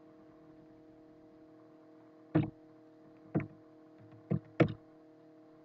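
Four sharp clicks from a computer keyboard and mouse, the last two close together, over a steady low electrical hum.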